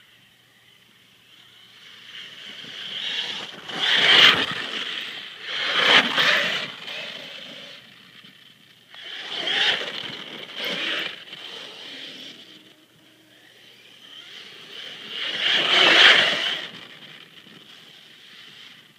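HPI Savage Flux brushless electric RC monster truck on a 6S LiPo tearing across grass. A high motor and drivetrain whine runs throughout and swells loudly several times as the truck speeds close past, with the rush of tyres through grass.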